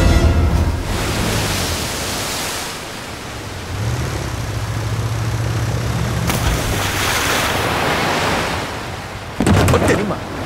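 Surf washing onto a beach, with a small motorboat's engine humming steadily for a couple of seconds in the middle. Near the end there is a loud rush of water as the boat runs in through the breaking waves.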